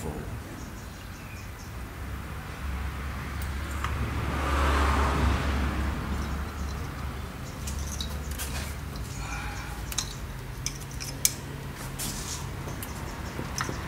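Spark plug leads being fitted onto the plugs of a Mitsubishi Lancer engine by hand: rubbing and handling noise with a few sharp clicks, the sharpest about eleven seconds in. Under it runs a low steady hum, with a broad swell of noise about five seconds in.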